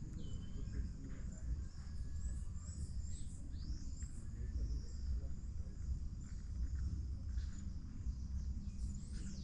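Wild birds chirping and whistling: many short calls and a few notes that sweep up or arch in pitch, over a steady low rumble.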